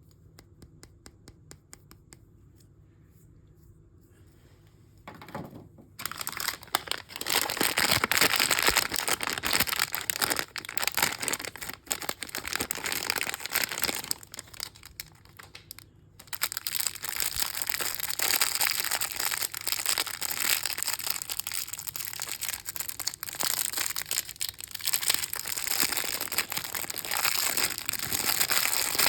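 Crinkly packaging of a mystery bag being crumpled and torn open by hand. Only faint light ticks for the first few seconds, then dense crinkling from about five seconds in, a brief pause about halfway, and crinkling again to the end.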